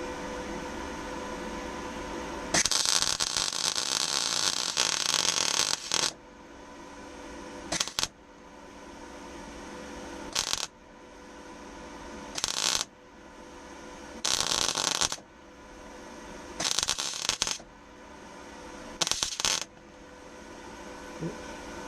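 Röhr MIG-200MI MIG welder arc crackling in bursts as it lays a butt weld on steel plate in stitches: one run of about three seconds, then six short bursts. A steady hum sits under them.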